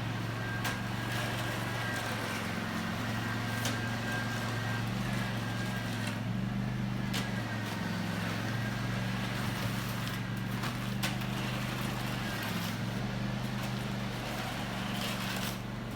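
An engine running steadily with slight shifts in pitch, with a few scattered clicks or knocks.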